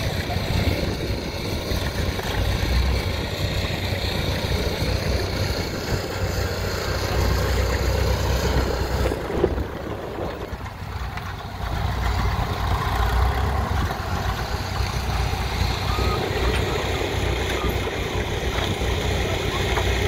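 Farm tractor engines running steadily at low speed, a red Farmall and the sled's tow tractor among them, with a brief drop in level about ten seconds in.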